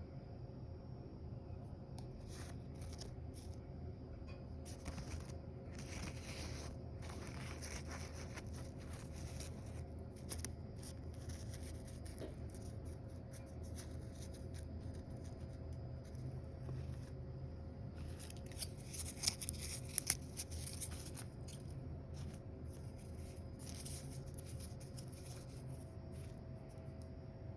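Dry crinkling and rustling in short, irregular spells as dried flowers are handled, with a few sharp clicks about 19 to 20 seconds in, over a steady low hum.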